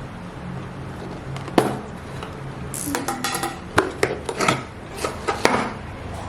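A package being handled and opened by hand: a few sharp clicks and knocks with short bursts of rustling, over a steady low hum.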